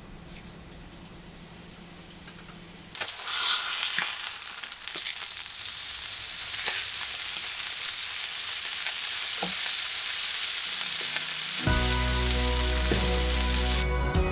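Pork loin slices sizzling in a hot frying pan, the sizzle starting suddenly about three seconds in and running on steadily. Soft background music comes in near the end.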